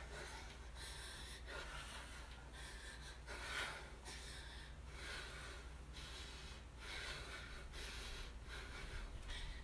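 A person breathing hard from exertion, with quick, noisy breaths in and out about once a second and one louder breath about three and a half seconds in.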